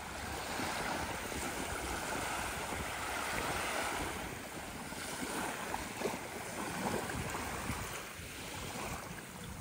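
Small waves washing softly onto a shallow sandy shore of clear, calm sea.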